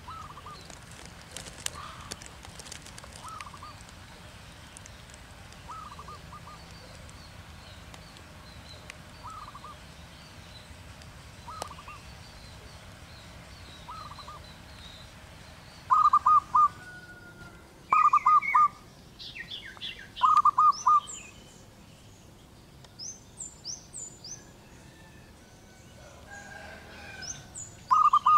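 Zebra doves cooing: short bursts of three or four quick coos, repeated every couple of seconds, faint at first and much louder from about halfway through. Other small birds chirp higher and quicker in the second half.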